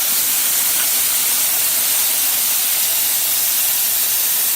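Compressed air rushing out of a motorcycle inner tube's open valve stem, valve core removed after bead seating: a loud, steady hiss that starts suddenly just before and holds unchanged throughout.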